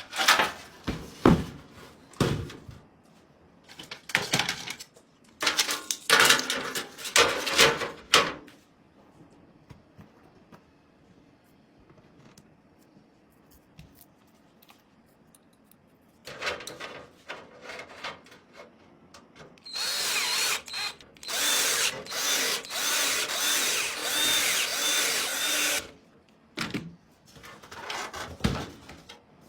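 A small power drill or electric screwdriver running in a string of short bursts with a high whine, near the end. Before that come scattered clicks and knocks of parts being handled.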